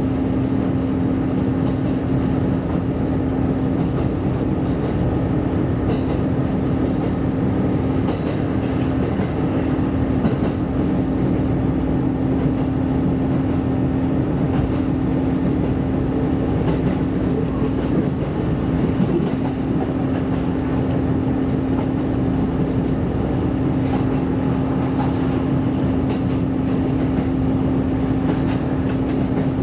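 KiHa 127 series diesel railcar running at a steady pace, heard from inside the passenger cabin: a steady droning hum over the rolling noise of the wheels on the rails.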